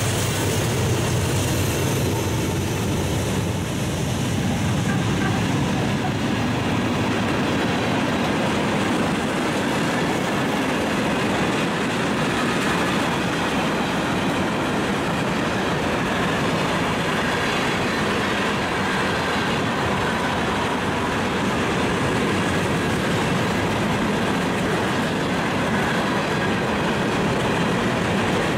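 Norfolk Southern freight train passing close by: the last diesel locomotives go by in the first second or so, then a steady rumble of tank cars and gondolas rolling on steel rails.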